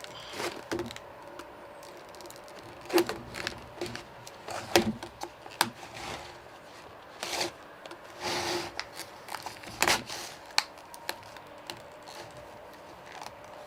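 Hard plastic blister packaging being handled and pried at by hand: irregular crackles, clicks and scrapes, with a longer crinkling stretch about two thirds of the way through.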